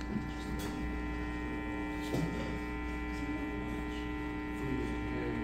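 Steady mains hum and buzz from stage amplifiers and PA, several steady tones held together, with a faint knock or two.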